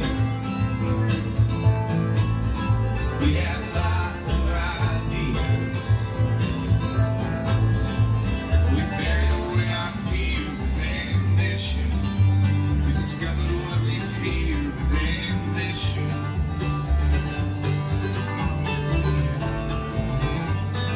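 Bluegrass music with banjo and guitar and a steady bass line.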